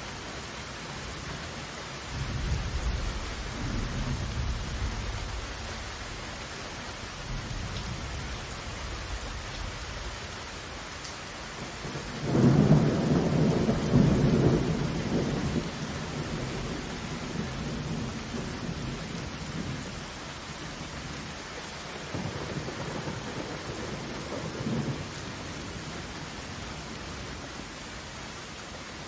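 Heavy rain falling steadily with rolling thunder: a low rumble a couple of seconds in, the loudest peal about twelve seconds in lasting a few seconds, and another lighter rumble about ten seconds after that.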